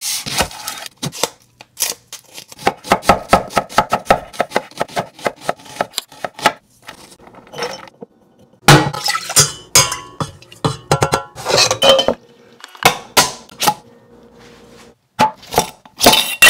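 Kitchen handling sounds on a wooden cutting board: a fast run of sharp knocks in the first half, then clinks and scrapes of a glass mason jar and its metal screw lid being twisted on in the second half.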